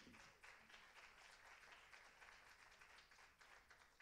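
Faint audience applause, a dense patter of many hands clapping that thins out slightly toward the end.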